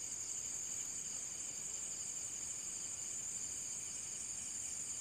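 Night-time insect chorus: a steady, shrill trilling at several high pitches at once, the highest the loudest, unchanging throughout.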